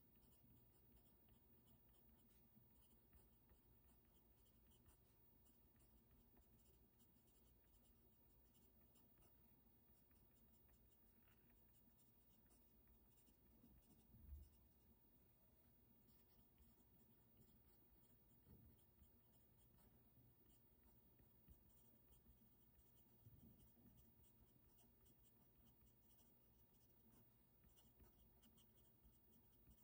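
Very faint scratching of a pen writing on paper. About fourteen seconds in there is one soft low thump, with a couple of smaller knocks later.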